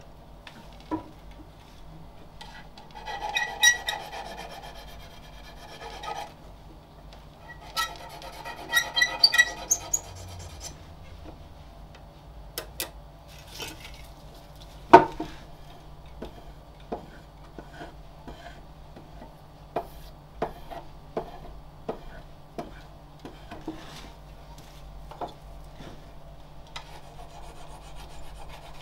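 A hooked turning tool scraping the face of a jacaranda plate spinning on a pole lathe, in two short spells of rasping cuts. Between and after them come scattered light clicks and knocks, one sharper knock about fifteen seconds in, with the rasping starting again near the end.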